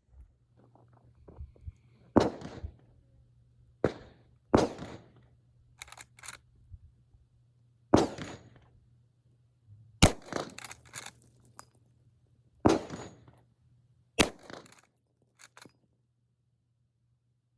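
Rossi R92 .45 Colt lever-action rifle fired about seven times, the shots spaced one to three seconds apart, with lighter metallic clicks between them as the lever is worked.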